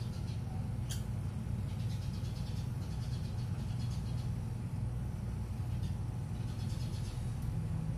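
Steady low background rumble, like distant traffic or machinery. Faint high chirps come through now and then, and there is a single sharp click about a second in.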